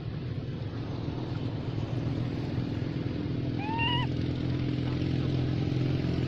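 One short, high-pitched cry from a baby monkey, rising then holding, about three and a half seconds in, over a steady motor hum.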